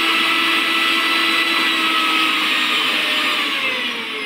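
Maharaja 1000-watt mixer grinder's copper-wound motor running at its top (third) speed with a steady whine. Near the end its pitch falls as it slows down.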